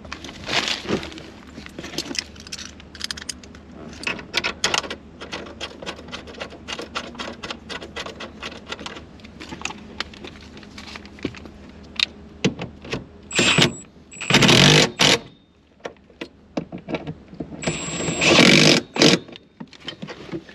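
Scattered light metal clicks and clinks of a six-point racing harness's mounting hardware being handled and fitted at the base of a bucket seat. In the second half come three loud noisy bursts, the last two the loudest.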